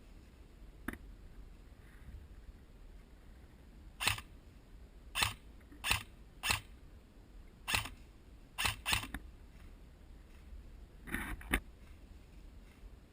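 Airsoft guns firing single shots: about ten short, sharp pops at irregular intervals, several of them close together in pairs.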